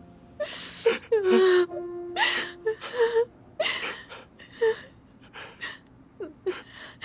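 A person crying: short gasping breaths and whimpers, coming in broken bursts.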